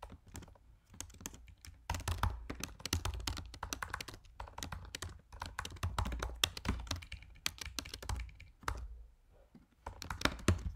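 Fast typing on a computer keyboard: a few scattered keystrokes, then a dense run of rapid key clicks, a short pause, and a final quick burst near the end.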